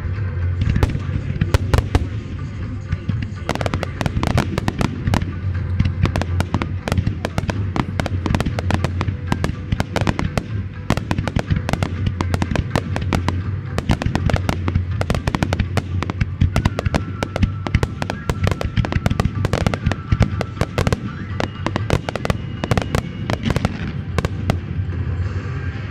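Fireworks display: a dense, continuous barrage of aerial shells bursting and crackling in quick succession, with accompanying show music underneath.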